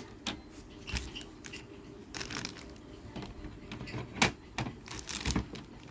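Handling noises of an unboxing: scattered knocks, scrapes and rustles as an item is pulled out of its box and packing, with one louder knock about four seconds in.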